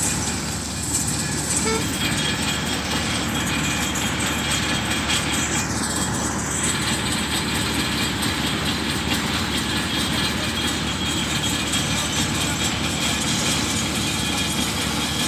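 A heavy diesel vehicle engine running steadily, a constant rumble with rushing noise over it.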